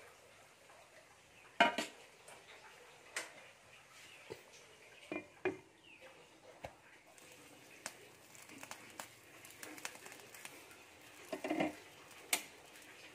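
Cookware clatter: a stainless steel bowl and a glass pot lid knocking against a nonstick frying pan as the lid goes on and comes off, in a string of separate clinks and clunks. The loudest comes about a second and a half in, with a quick cluster near the end.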